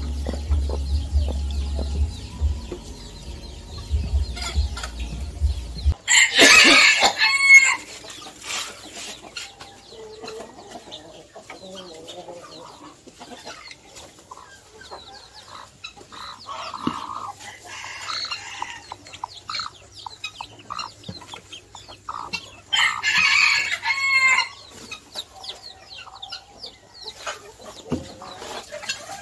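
A rooster crowing twice, the loud calls about six seconds in and again around twenty-three seconds, with softer chicken clucking between. A low rumble runs through the first six seconds.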